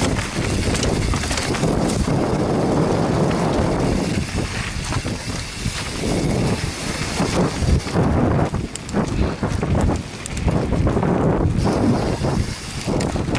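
Wind buffeting the microphone of a camera on a mountain biker riding fast down a dirt trail, with the bike knocking and rattling over the bumps, more often in the second half.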